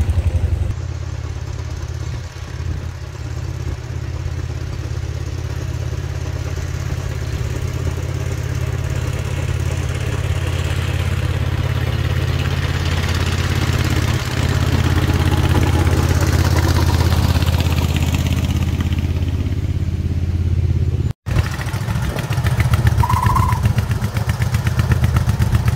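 Engine of a Wickham Type 17 rail motor trolley running as it travels along the track, a steady low note that grows louder as the trolley draws near. It breaks off for an instant about three-quarters through, then resumes close by.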